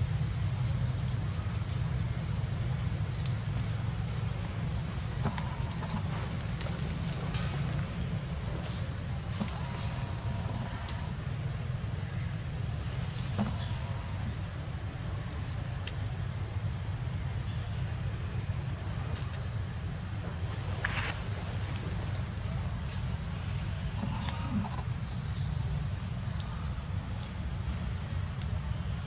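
Insects buzzing in one steady high tone, with a low rumble beneath.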